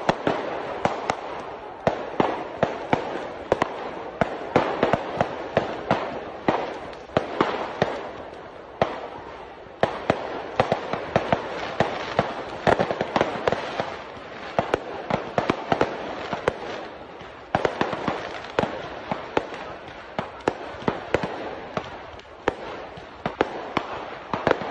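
Fireworks and firecrackers going off in rapid, irregular succession, several sharp bangs a second of varying loudness, over a continuous noisy background.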